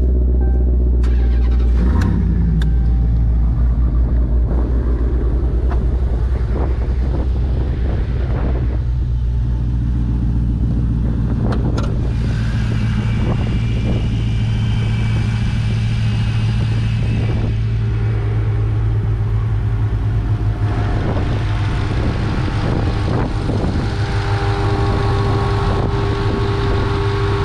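Supercharged V8 muscle car engine running with a steady low drone; the note shifts about two seconds in and then holds.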